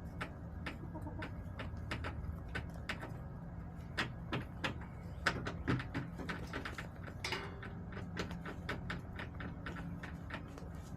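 Backyard hens pecking and scratching in a plastic coop: many rapid, irregular sharp taps and clicks, busiest in the second half, with a brief cluck about seven seconds in, over a steady low hum.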